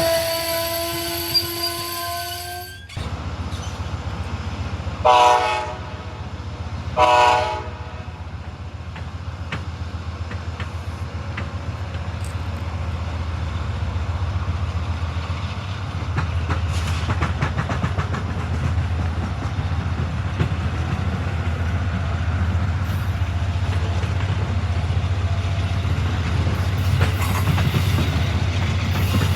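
A train horn sounds two short blasts, then a train rolls past with a steady low rumble and clattering wheels on the rail joints. Before this, a slightly rising pitched tone cuts off abruptly about three seconds in.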